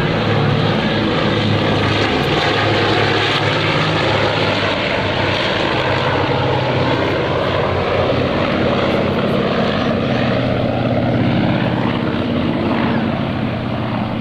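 Four Wright R-3350 radial piston engines of a Lockheed Super Constellation running steadily as the propeller airliner passes, fading slightly near the end.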